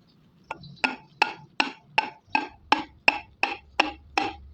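Steady, even taps, about three a second, each with a short metallic ring: the 5 hp diesel engine's piston, fitted with new rings, being tapped little by little down into the cylinder from above.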